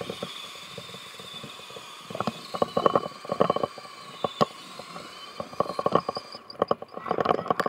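Stacyc electric balance bike's motor whining steadily while riding, with clusters of rattling knocks from the bike over the rough dirt track, about two seconds in, again after five seconds and near the end.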